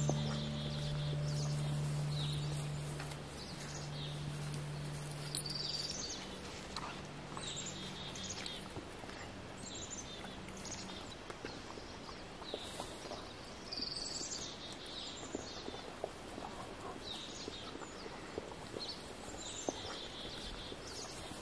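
Several wild birds chirping in a pine woodland, short high calls repeating every second or so. The last held notes of a guitar fade away over the first several seconds, and a few small clicks and rustles come in the second half.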